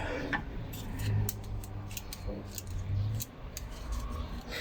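Scattered light metallic clicks and taps as the small steel parts of a cheap door lock handle are handled and fitted.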